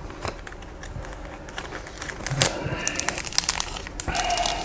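Handling of trading-card packs: crinkly rustling of a foil card-pack wrapper being picked from the box, with light clicks and taps of cards on a desk mat. Near the end comes a short pitched sound among the crinkling.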